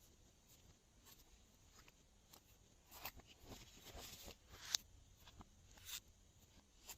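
Glossy slime being handled and mixed by hand, giving faint sticky clicks and crackles, busiest and loudest about three to five seconds in.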